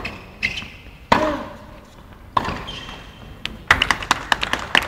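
Tennis ball struck back and forth with rackets in a rally, each hit a sharp crack with some echo, about one to one and a half seconds apart. A little under four seconds in, the crowd breaks into applause as the point ends.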